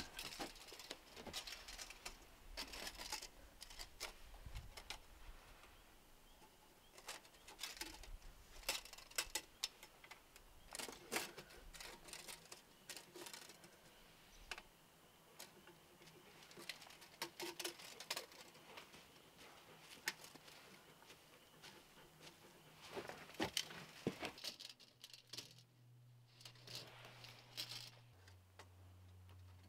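Faint, scattered light clicks and taps of wooden pieces and hand tools being handled, with a faint steady low hum entering near the end.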